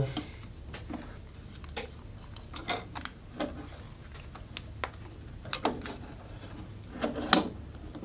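Scattered light clicks and taps of a wire and screw against a plastic lamp holder and a metal electrical box as a wire hook is fitted under the holder's terminal screw, with the sharpest clicks near the end.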